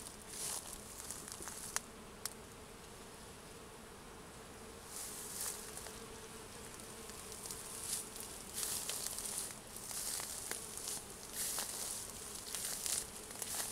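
Bees buzzing among flowering raspberry canes, a steady hum while they work the blossoms. Irregular hissy rustles come and go over it.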